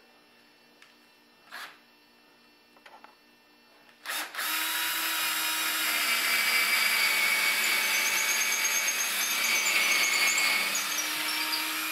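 A cordless drill with a 3/16-inch bit drills a pilot hole up into a ceiling stud. It starts about four seconds in and runs steadily for about eight seconds.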